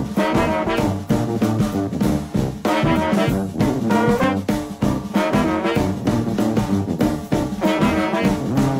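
Background music led by brass instruments, in a swing style, with a regular beat.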